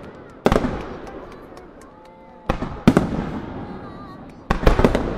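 Aerial firework shells bursting overhead: a sharp bang about half a second in, two more close together midway, and a quick cluster of three near the end, each followed by a long fading rumble.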